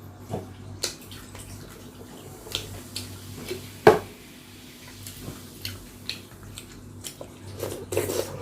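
Close-miked eating of chicken tinola: wet mouth and slurping sounds with scattered short clicks, the sharpest about four seconds in and a cluster near the end.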